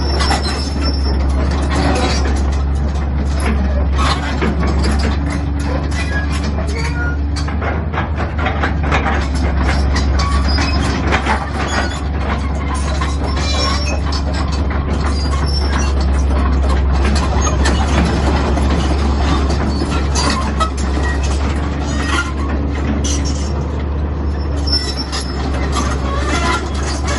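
Caterpillar 320BL crawler excavator's diesel engine running steadily while the machine travels on its steel tracks, with frequent short metallic clanks from the track links.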